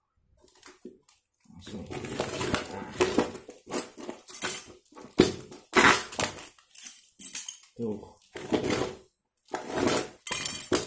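A long parcel wrapped in brown packing tape and plastic is handled and torn open by hand: irregular rustling, crinkling and tearing with sharp light clicks and knocks. It starts about a second and a half in and goes on in short spells.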